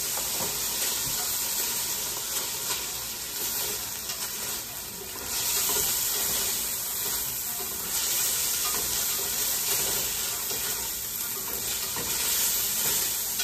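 Marinated tuna pieces sizzling as they fry in hot oil in a stainless steel pot, with a spatula stirring and scraping them about.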